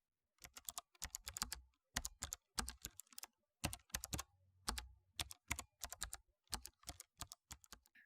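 Typing on a mechanical keyboard: quick runs of sharp key clicks with short pauses between them, stopping abruptly near the end.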